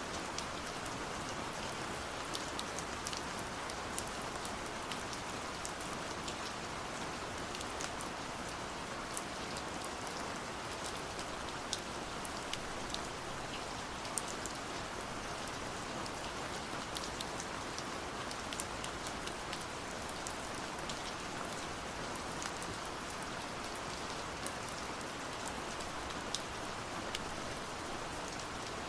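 Steady gentle rain falling on a surface, a constant hiss with many small, scattered drop ticks.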